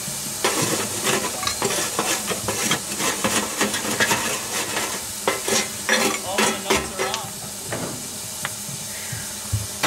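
Steel fire rake scraping and knocking against the grates and coals of a small coal-fired steam locomotive's firebox, a busy irregular run of scrapes and clinks over a steady hiss of steam.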